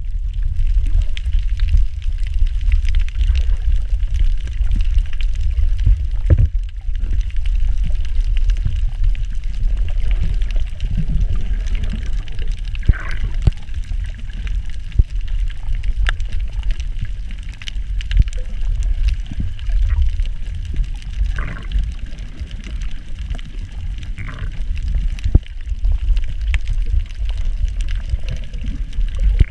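Underwater sound picked up by a camera moving through the water over a coral reef: a steady low rumble of water against the camera, with scattered sharp clicks and a few short muffled blips.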